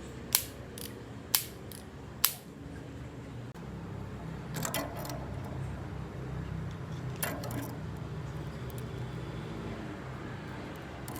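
Toy gun that fires 7 mm BBs shooting three sharp snaps about a second apart, followed twice by a short run of lighter rattling clicks, as of the gun being handled or reloaded, over a steady low hum.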